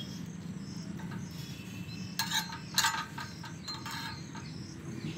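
Metal knife blade clinking and scraping against a small metal ladle as pieces of butter are cut into it: several short clinks spread over a few seconds, some with a faint ring.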